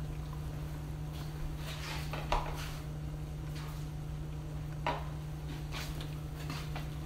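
Two light clinks of a utensil or lid against a stainless steel stockpot, about two seconds in and again near five seconds, over a steady low kitchen hum and faint rustling.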